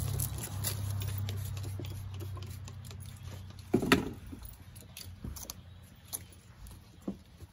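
Hand trigger-spray bottle of quick detailer squirted at a car's lower door panel, then a microfiber towel wiping the panel, with a sharp noise about four seconds in. A low engine hum from a passing vehicle fades out over the first few seconds.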